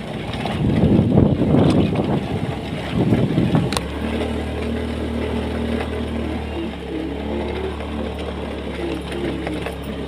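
Motorcycle riding over a rocky, bumpy dirt road: rough rumbling and jolting for the first few seconds, then a steady engine hum.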